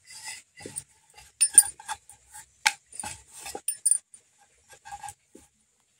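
Wooden rolling pin and round wooden rolling board knocking and clattering as puri dough is rolled out: a string of short, irregular knocks and clicks, the loudest about a second and a half in.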